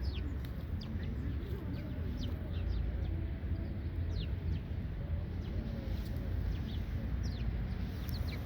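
Many birds chirping, a quick scatter of short, high, downward-falling calls, over a steady low rumble.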